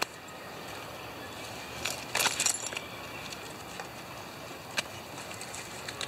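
Aluminium foil crinkling as it is handled and pressed flat, in a quick cluster of crackles about two seconds in, with a single sharp click a little before five seconds, over a steady background hiss.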